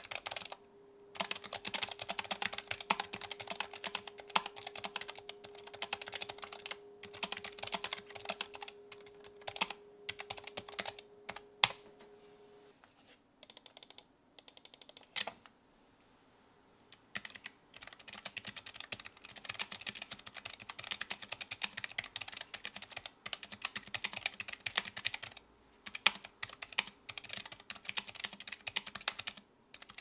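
Fast typing on a Keychron low-profile mechanical keyboard: dense streams of key clicks. First it is fitted with new white low-profile keycaps, which sound a bit more thumpy. After a break of a few seconds near the middle with only scattered clicks, the typing is on the stock grey keycaps.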